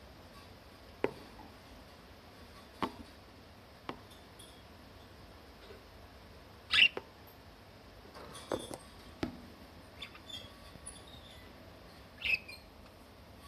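Budgerigar giving a few short chirps, the loudest about seven seconds in and another near the end, amid scattered light clicks and taps.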